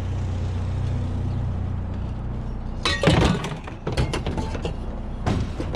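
Metal pans and an old skateboard being picked up and handled, clattering in a quick run of knocks about three seconds in, with a few more near the end. A vehicle engine idles steadily underneath.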